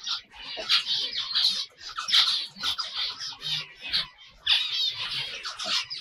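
Many caged finches chirping and calling over one another: a busy run of short, high calls, with a brief lull a little after four seconds.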